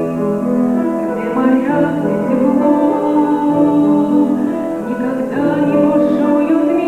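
Music: a song with sustained instrumental chords and a singing voice.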